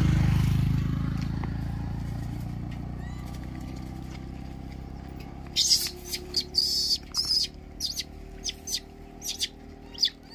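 A motorcycle passes close, its engine fading away over the first few seconds. From about halfway, a run of about ten short, sharp rustles and crinkles from a bag being rummaged through.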